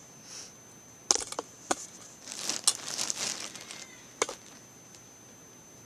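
Handling noise from a phone being moved about: several sharp knocks and a stretch of rustling and scraping in the middle, over a faint steady high whine.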